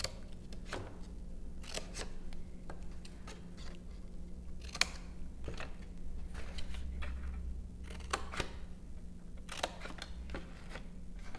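Scissors snipping cardstock: short, sharp cuts at irregular intervals, over a faint steady hum.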